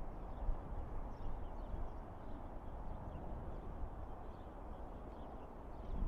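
Steady, even noise of distant road traffic crossing the Prince of Wales Bridge, heaviest in the low rumble. Faint, short, high bird chirps are scattered through it.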